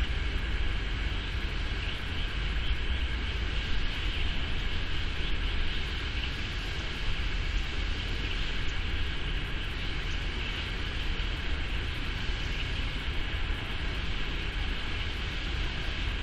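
Wind buffeting the microphone outdoors: a steady, uneven low rumble, with a constant high hiss behind it.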